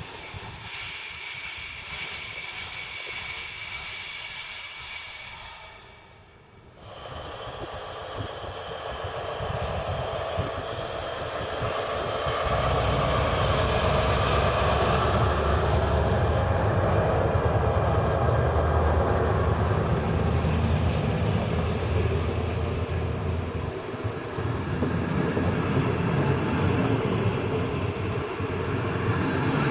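Train wheels squealing on arrival, several high steady tones held for about five seconds before cutting off abruptly. Then a train approaches, its running noise rising, with a heavy low rumble from about twelve seconds on.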